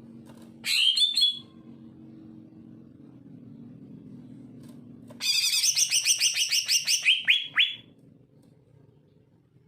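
Male cucak ijo (green leafbird) singing in fast chattering bursts. A short burst comes about a second in, then a longer run of rapid high notes from about five seconds in, ending in a few quick downward-swept notes.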